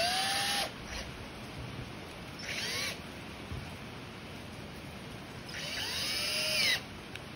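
Cordless drill driving a screw into wood in three short runs, its motor whine rising in pitch each time it spins up: a brief run at the start, a shorter one about two and a half seconds in, and a longer one near the end.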